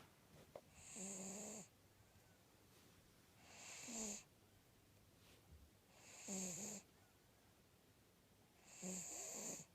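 American Cocker Spaniel snoring: four snores, one every two and a half to three seconds.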